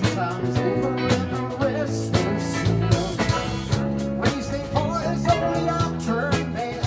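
A rock band playing live: electric guitars, electric bass, keyboard and a drum kit, with a wavering lead line over sustained chords and drum hits about twice a second.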